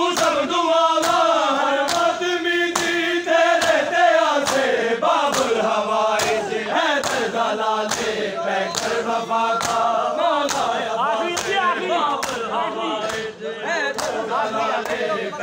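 A group of men chanting a noha in unison, over a steady beat of hands slapping bare chests (matam), about three slaps every two seconds.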